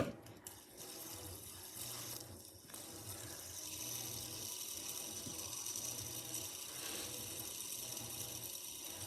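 Washing machine running: water rushes steadily under a low hum that pulses about once a second. There is a single sharp click right at the start.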